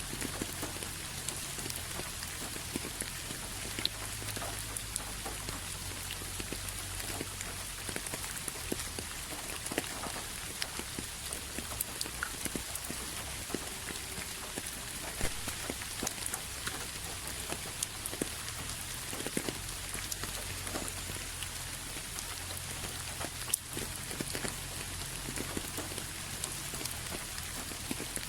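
Steady rain falling on a surface: an even hiss with many scattered, sharper drops ticking through it.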